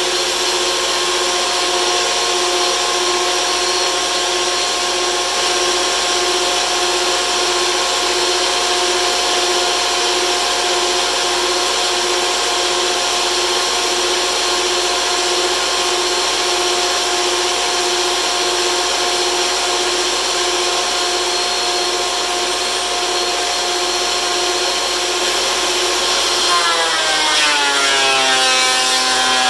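DeWalt benchtop thickness planer running with a steady high motor whine. Near the end a board is fed in and the whine drops sharply in pitch as the motor takes the load of the cut.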